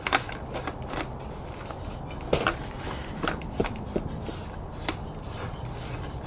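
Scattered light clicks and knocks from handling the robotic mower's RTK antenna station while it is unscrewed from its metal mounting pole, a handful of sharp taps spread unevenly.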